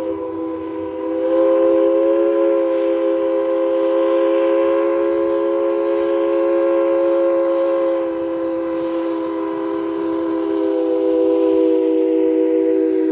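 Steam locomotive's chime whistle blowing one long held chord of several notes, its pitch shifting slightly a couple of times.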